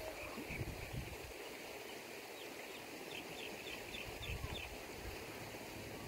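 Small songbirds chirping faintly, with a quick run of short high notes through the middle. Wind buffets the microphone with a low rumble near the start and again near the end.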